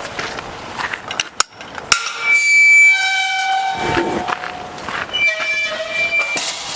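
A train horn sounds two held blasts, each a chord of several steady notes: the first about two seconds in, lasting under two seconds, and a shorter one near the end. Footsteps on the trail come before the first blast.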